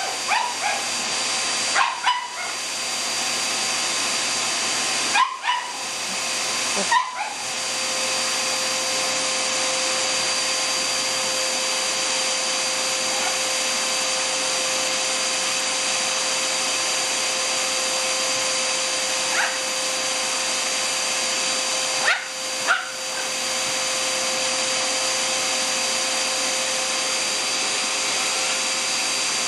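Vacuum cleaner motor running steadily while a shih tzu barks at it in short, sharp yips: several in the first seven seconds, then a pair about twenty-two seconds in.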